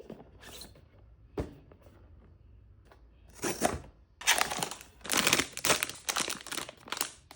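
Sealed blind-box foil bag being torn open and crinkled by hand: a few soft clicks, then from about three and a half seconds in, loud crinkling and tearing that goes on to the end.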